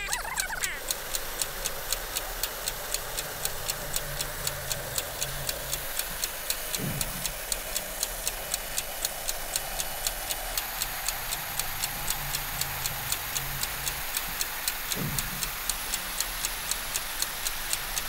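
Steady, fast clock-ticking sound effect, evenly spaced ticks a few times a second over a faint low background.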